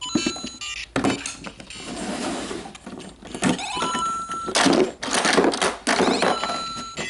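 LEGO Super Mario interactive figure's built-in speaker playing short electronic beeps and game sound effects. Mixed in are several sharp plastic knocks and clacks as the figure hops on the bricks of the course.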